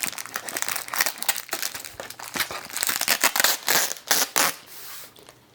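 Plastic packaging of a Beyblade toy crinkling as it is handled and pulled open, in dense irregular crackles that ease off near the end.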